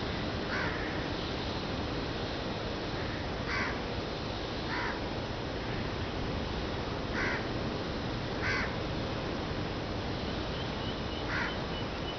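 Crows cawing: about six short single caws, one to three seconds apart, over the steady rush of surf breaking on the beach.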